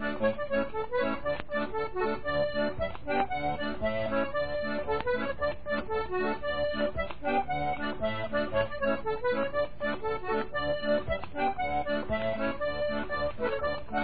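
Accordion playing a traditional tune, a dense run of quick notes over a steady accompaniment.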